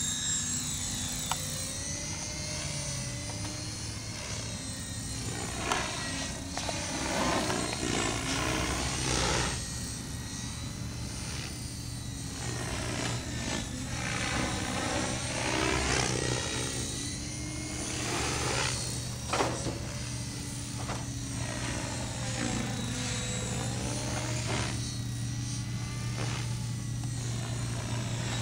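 Radio-controlled Hurricane 550 helicopter flying, its rotor hum steady underneath while the sound repeatedly swells and sweeps up and down as the model moves about.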